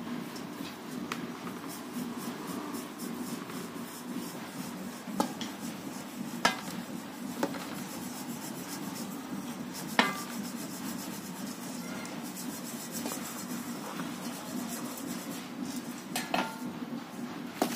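Hands rubbing a coarse powder through a perforated steel sieve in a steel bowl: a steady scratchy rustle, broken by a few sharp metallic clinks of steel on steel, the loudest about ten seconds in.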